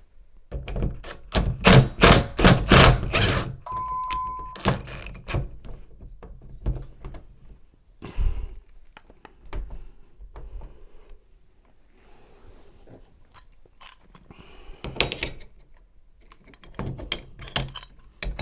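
Knocks, clicks and thunks of metal tools and parts being handled at a door deadbolt while a screw in the lock core is backed out: a run of loud thunks in the first few seconds, a brief steady beep-like tone around four seconds in, then scattered taps and clicks.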